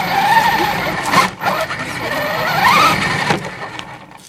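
Electric RC car running, its motor whining and rising and falling in pitch with the throttle, with brief cut-outs about a second in and again past three seconds, fading near the end.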